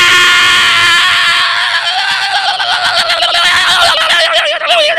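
A man's voice letting out one long, high-pitched, wavering falsetto shriek into a handheld microphone, mimicking a panicked woman screaming down the phone.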